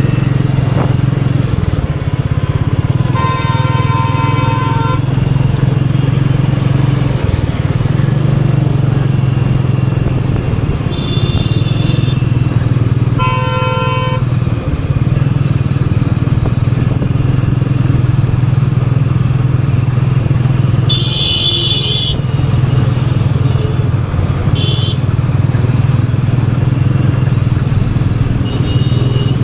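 Royal Enfield Meteor 350's single-cylinder engine running steadily at an easy, even pace in city traffic. Horns honk twice in the first half, for about two seconds and then about one second, and a few short, high-pitched beeps come later.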